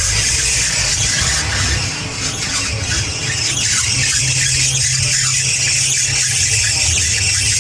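Toyota Corolla XLi fan belt squealing steadily with the engine running, a high-pitched squeal over the low engine hum: the belt noise fault the video sets out to fix.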